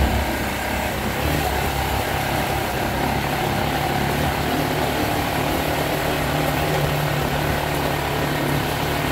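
Motorcycle engine running at a steady pace, with wind and road noise from riding over a cobblestone road.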